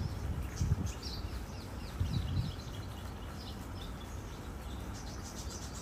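Faint, short, high bird chirps scattered throughout, over a low rumble, with a few dull low thumps near the start and about two seconds in.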